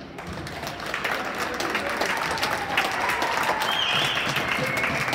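Spectators clapping, getting louder about a second in and holding steady, with voices calling out over it.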